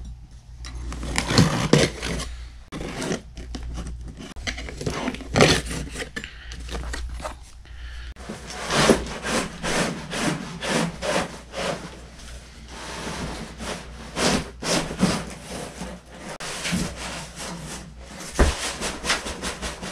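Long cardboard shipping box being slid, opened and emptied: repeated irregular scraping and rubbing of cardboard, with a thump near the end.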